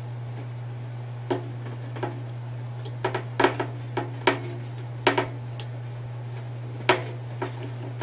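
Screwdriver clicking and tapping against a motherboard screw and the steel PC case as the screw is worked into its standoff: irregular sharp clicks, bunched together in the middle, over a steady low hum.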